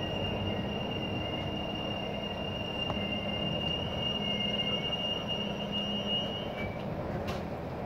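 NE81 railcar rolling slowly into a station, its running gear rumbling under a low hum. A thin, steady high squeal sounds as it slows and stops about six and a half seconds in.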